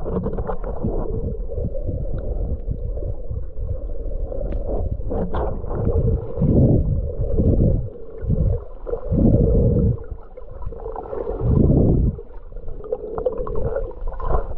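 Muffled underwater sound from a camera held below the surface while snorkeling: a continuous low rumble of moving water with a steady hum. Several louder surges of water noise come in the second half.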